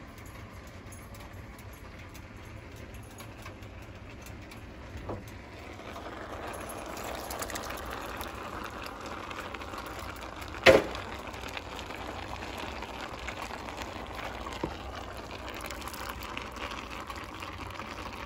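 A pan of pasta and vegetables sizzling on the stove with a steady hiss, a little louder from about six seconds in. There is one sharp knock, the loudest sound, a little past halfway.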